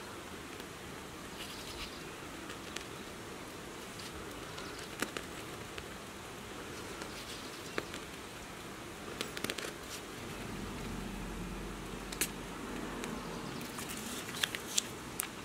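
Butter cream being piped from a piping bag with a metal tip onto soft bread rolls: scattered small clicks and ticks over a steady faint hiss.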